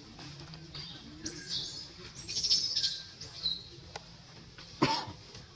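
Several short, high-pitched chirping calls in a row, then a sharp click near the end.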